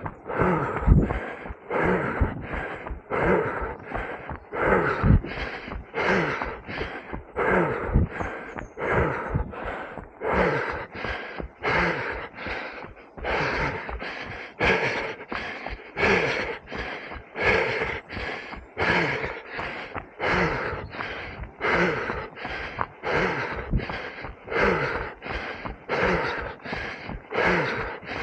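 A runner's heavy breathing close to the microphone, steady and rhythmic at roughly three breaths every two seconds: the hard panting of someone running at effort.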